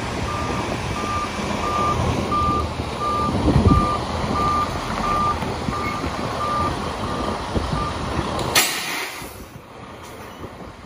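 Semi-truck tractor backing up with its diesel engine running and its reversing alarm beeping about twice a second. The beeping stops near the end, followed by a short sharp hiss of air as the air brakes are set, then quieter idling.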